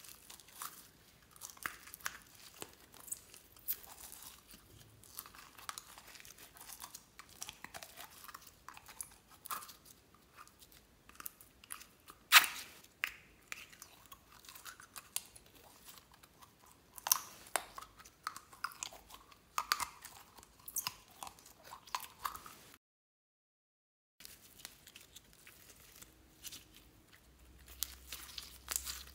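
Hands squeezing and pressing glitter slime, making a run of small wet clicks and crackles. One sharp pop about twelve seconds in, and a second of dead silence a little after two-thirds of the way through.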